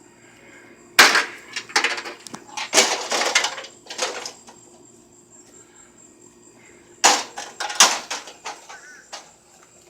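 Heavy blows striking a microwave oven as it is smashed: a run of hard, clattering hits about a second in, and another pair of hits about seven seconds in. Crickets chirp steadily in the background.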